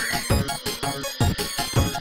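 Background music with a steady beat, a low thump about twice a second under a melody.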